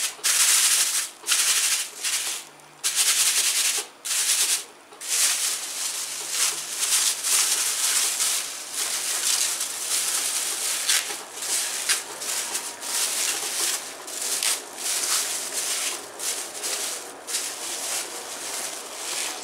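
Thin plastic bag of berries crinkling and rustling as it is pressed flat and its open end gathered up. The rustling comes in separate short bursts for the first few seconds, then turns into nearly continuous crinkling.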